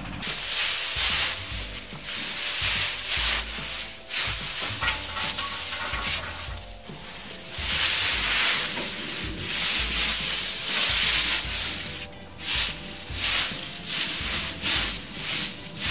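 Dry, brittle cucumber vines crackling and rustling in repeated surges as armfuls are heaped onto a power-tiller trailer and then trodden down on the pile.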